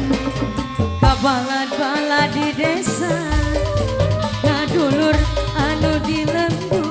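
Live Sundanese band music: a bending lead melody over drums and bass, with the drums and bass dropping out for about two seconds a little after the start, then coming back in.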